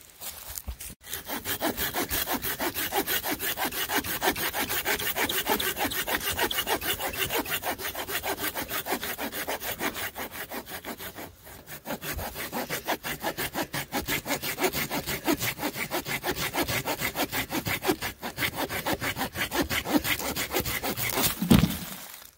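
Hand saw cutting through a dead, weathered log, a steady rasp of quick push-pull strokes at about four a second with a brief pause near the middle. Near the end the cut goes through and the piece drops with a thump.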